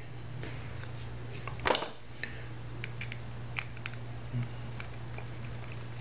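A small screwdriver driving tiny screws into a plastic quadcopter camera mount, giving scattered light clicks and scrapes of metal on plastic, with one louder click a little under two seconds in.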